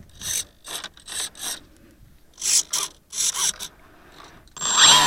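Short mechanical buzzes, mostly in pairs, from the model plane's servos moving the control surfaces. About four and a half seconds in, the plane's electric motor and pusher propeller start up and run with a steady whine.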